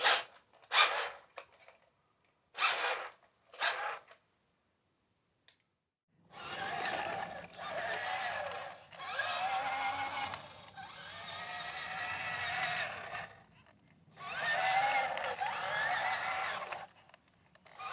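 Vintage Tandy Off Roader RC car's electric drive motor running: a few short blips, then longer runs of several seconds with a wavering whine, stopping briefly twice.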